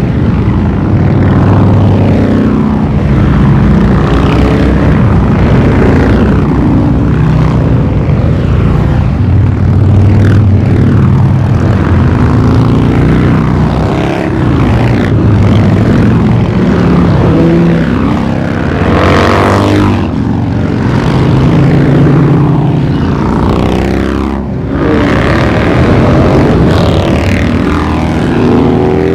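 A stream of V-twin cruiser motorcycles riding past at parade pace, their engines running in one loud, overlapping sound, with the pitch of each bike falling as it goes by.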